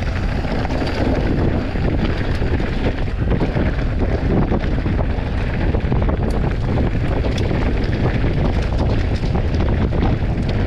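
Mountain bike speeding down a dirt trail: heavy wind buffeting on the microphone over steady tyre noise, with scattered sharp clicks and rattles from the bike.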